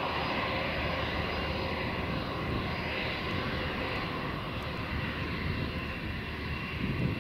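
Airbus A320-232's two IAE V2500 turbofan engines running steadily at idle on the ground: a high, even whine of several tones over a low rumble, with no spool-up.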